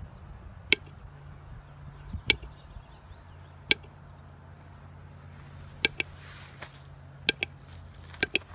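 About seven short, sharp knocks at uneven intervals over a low steady hum, two of them close together near the end.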